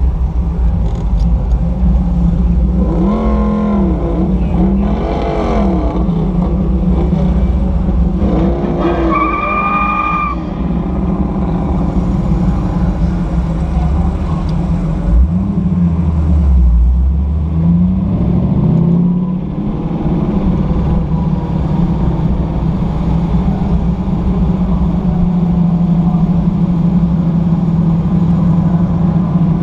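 Sunbeam Tiger's Ford V8 heard from inside the car, running steadily at parade-lap pace. About halfway through the engine note drops and then climbs again.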